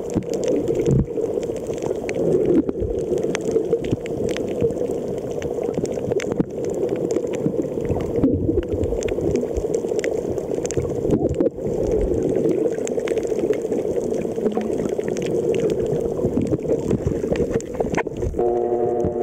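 Underwater sound picked up by a waterproof compact camera's built-in microphone: a steady, muffled rush of water with scattered clicks and crackles. Near the end a low humming tone with several pitches starts.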